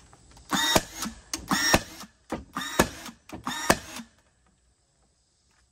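Cordless battery-powered nailer driving four nails into 2x4 boards, about one a second: each shot is a short motor whir ending in a sharp snap as the nail fires.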